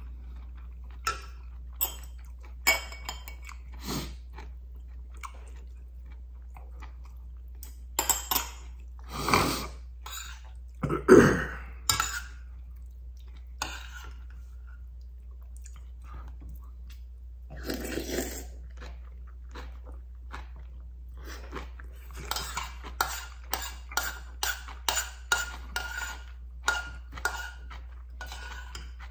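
Eating noodle soup with rice from a stainless steel pot: chewing and slurping, with wooden chopsticks tapping and scraping against the pot. A few louder slurps come about a third of the way in, and a quick run of taps near the end, about four a second, as the chopsticks stir the pot.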